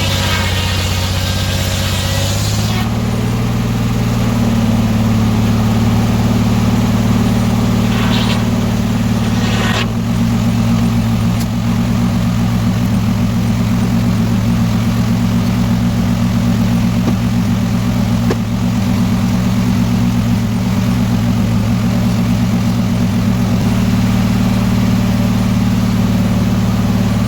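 Engine running steadily, its speed stepping up about three seconds in and then holding.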